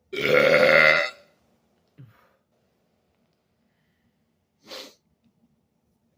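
A man's loud, forced burp lasting about a second, deep and pitched, followed by a faint short gulp and, near the end, a brief breathy puff.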